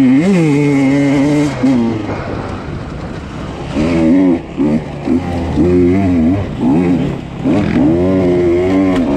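Husqvarna TE 150 two-stroke dirt bike engine revving up and dropping off again and again as the throttle is worked: a long pull in the first two seconds, then a string of shorter surges from about four seconds in.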